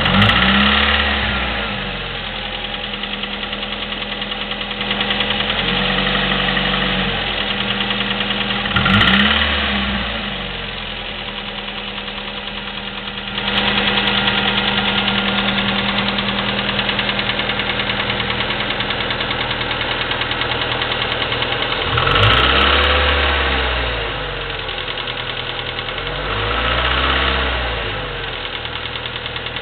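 Chevy S-10's 2.2L four-cylinder engine idling with a valve-train clicking, revved briefly four times, with the pitch rising and falling back each time. The uploader says the click has been there for 45K miles and puts it down to the valves or lifters, a common trait of this engine.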